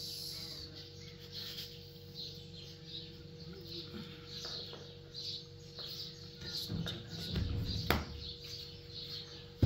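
A small bird chirping in a steady rhythm, about two short high chirps a second. A low rumble with a sharp knock comes about eight seconds in, and another knock right at the end.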